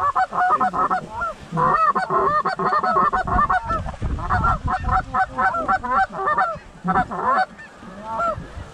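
Many Canada goose honks and clucks overlapping in a dense, rapid chorus, thinning to a few scattered calls near the end.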